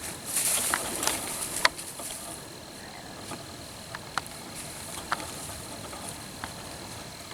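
Dry leaves and brush rustling with a few sharp twig snaps in the woods, strongest in the first two seconds, then a handful of scattered single cracks.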